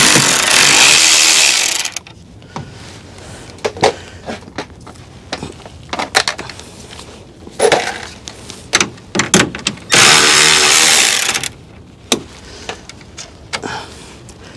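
Milwaukee cordless ratchet running in two bursts of about two seconds each, at the start and about ten seconds in, backing out 10 mm screws from the plastic radiator support cover. Clicks and knocks from handling the tool and screws come between the two runs.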